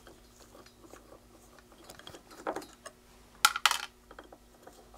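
Small metal clicks and clinks of a screwdriver backing screws out of an aluminium box, with two sharp metallic clinks close together about three and a half seconds in.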